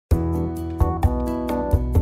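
Instrumental background music with a steady beat under sustained pitched notes and bass. It starts abruptly just after the beginning.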